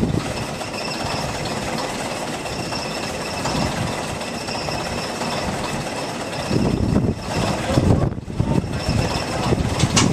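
Crane engine running steadily, with a faint steady high whine above it. Heavier low rumbling comes in about six and a half seconds in.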